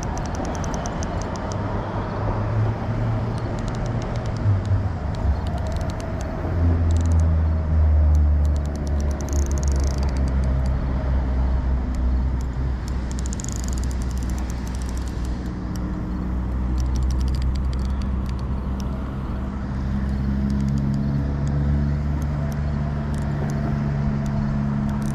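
Motor vehicle traffic with an engine running low and steady, its hum strongest from about six seconds in. Light clicking comes and goes over it.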